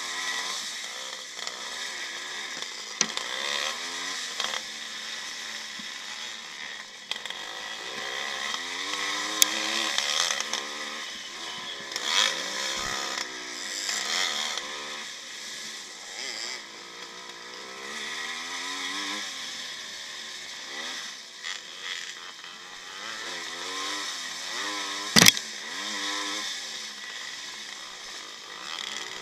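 1955 Maico's two-stroke single-cylinder engine heard on board, revving up and down repeatedly as the rider works through the gears. A sharp knock stands out near the end.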